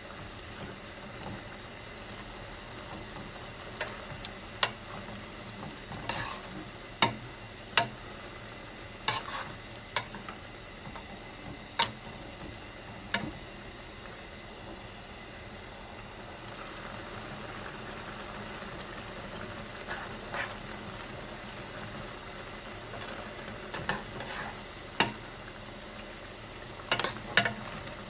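A metal ladle stirring a pot of simmering pork and bean-sprout stew as doenjang is mixed in, knocking irregularly against the pot with about a dozen sharp clinks over the steady hiss of the bubbling broth.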